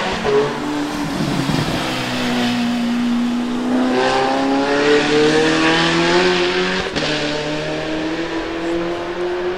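Zenvo TSR-S's twin-supercharged 5.8-litre flat-plane V8 accelerating away out of a corner. The revs dip briefly near the start, then climb steadily, with a short break in the sound about seven seconds in.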